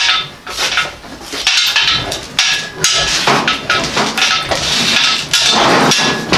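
Hand-pumped hydraulic engine hoist raising a heavy engine and transmission: repeated metallic clanks and creaks from the pump handle, boom and hanging chain with each pump stroke, coming in a steady rhythm.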